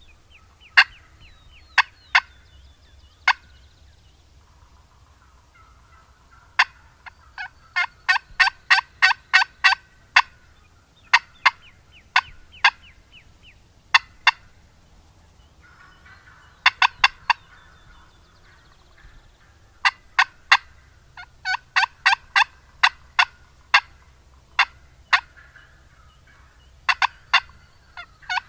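Turkey cutting: runs of sharp, loud clucks, several a second, coming in irregular bursts with short pauses between, mixed with a few softer, drawn-out calls.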